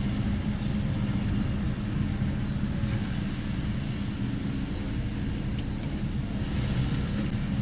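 Kobelco SK75 excavator's diesel engine running steadily, a low even hum.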